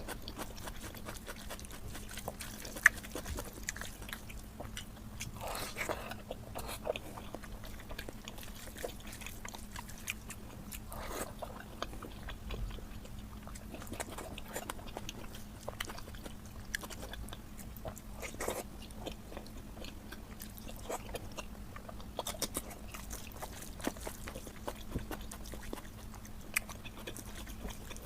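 Close-miked chewing and wet mouth noises of a person eating oily mutton fat curry: many small clicks and smacks, with a sharp click about three seconds in.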